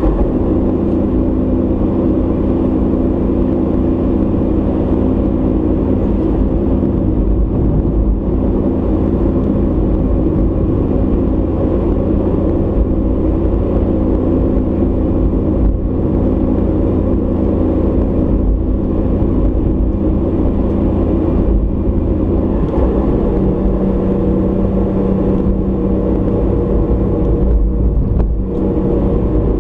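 A car driving at steady speed, heard from a dashcam inside the cabin: a continuous low engine hum and road noise, with the engine's pitch shifting about three quarters of the way through.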